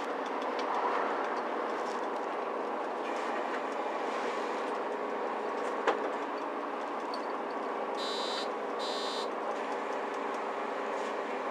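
Cabin noise of a Mercedes-Benz Citaro C2 G articulated bus with a Euro 6 tower-mounted engine, a steady run. A sharp click about six seconds in, and two short electronic beeps around eight and nine seconds in.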